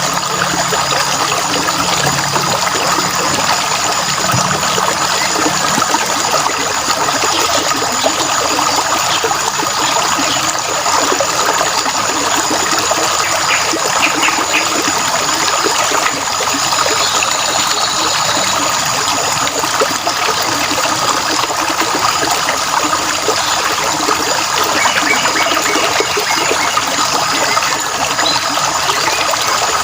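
Water trickling and flowing steadily, like a small stream running over stones.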